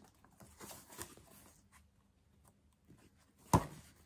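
Small cardboard parcel being handled and unpacked: light rustling and small clicks, then one sharp knock about three and a half seconds in.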